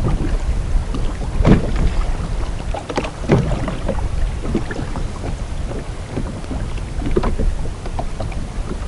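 Wind buffeting the microphone over water around a jet ski, with a few short sharp splashes or knocks against the hull.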